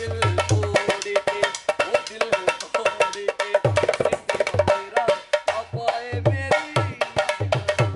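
Dholak, the two-headed barrel hand drum, played in a fast rhythm: crisp slaps on the treble head over deep strokes on the bass head. The deep strokes drop out about a second in, leaving only the treble slaps, and come back about three and a half seconds in.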